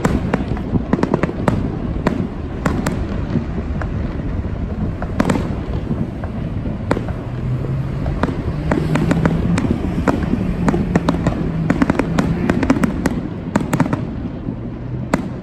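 Aerial fireworks display: shells bursting in a rapid, uneven run of sharp bangs and crackles that come in clusters, over a steady low rumble.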